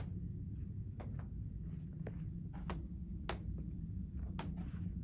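Quiet room tone: a low steady rumble with about eight short clicks and taps scattered through it, the sharpest about three seconds in.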